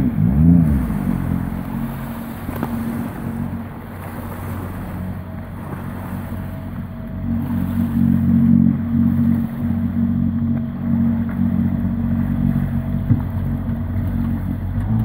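Jetboat's Nissan VQ35 3.5-litre V6 driving a Flopro jet unit: a quick throttle blip that rises and falls right at the start, then running steadily at low revs. The engine note drops back for a few seconds and comes up louder and steadier from about halfway, as the boat is driven slowly onto its trailer.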